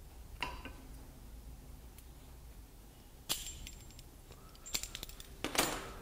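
Sharp metal clicks and clinks from steel locking pliers cutting a small piece of wire in the wire cutter built into their jaws, with the cut piece ending up on a steel block. A first click with a short ring comes about half a second in, another at about three seconds, and a quick cluster of clinks near the end.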